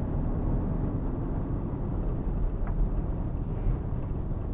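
Steady low rumble of a Fiat Uno Economy driving at moderate speed, engine and tyre noise heard from inside the cabin.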